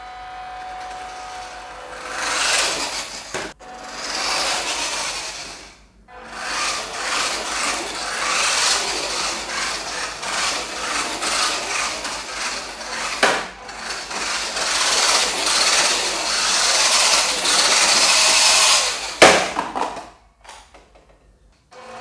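WPL D12 RC truck's electric motor and gearbox whirring with a gritty grinding as it drives, in several bursts that rise and fall with the throttle. The longest run lasts about thirteen seconds and ends with a sharp click, after which it goes near quiet.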